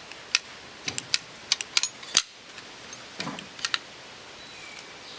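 Quick, sharp metallic clicks and clinks from loose steel drill-press parts (the quill handle and gear shaft) being handled and knocked together: a run of about nine in the first two seconds, then two more a little after three seconds in.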